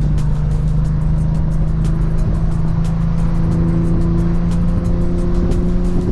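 Nissan GT-R R35's stroked 4.1-litre VR38 twin-turbo V6, breathing through a 4-inch stainless exhaust, running at a steady engine speed under light load, its note climbing slightly near the end.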